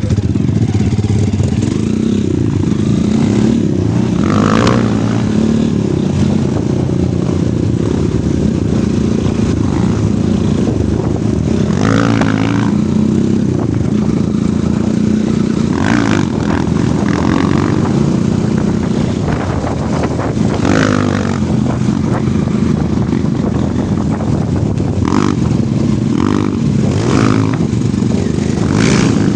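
Off-road motorcycle engine running steadily as the bike is ridden along a trail. Short higher-pitched rattles or squeaks come and go several times.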